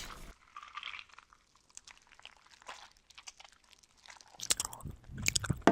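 Wet squishing and crunchy clicking of slime being chewed. It is sparse small clicks at first, then turns louder and denser about four and a half seconds in.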